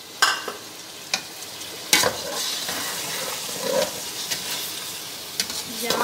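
Meat and freshly added chopped tomatoes sizzling and frying in an aluminium pot, stirred with a metal slotted spoon that knocks against the pot a few times. The sizzle grows louder about two seconds in as the tomatoes are stirred through.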